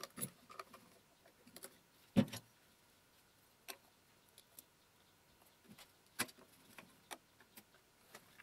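Scattered light clicks and knocks of small metal parts being handled on an electric motor's terminal box, with a sharper knock about two seconds in.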